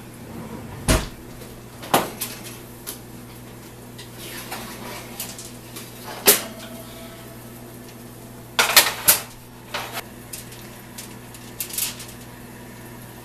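Sharp metal clanks and knocks, about a dozen in all, as a foil-lined baking pan is taken out of the oven, set on the stovetop and handled with metal tongs. The loudest run of clatter comes about two-thirds of the way through.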